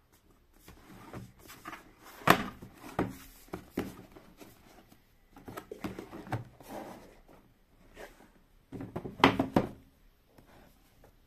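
Cardboard product box being handled, lifted and turned over on a desk: rubbing and scraping with irregular knocks, the loudest about two seconds in and a cluster of sharp knocks about nine seconds in.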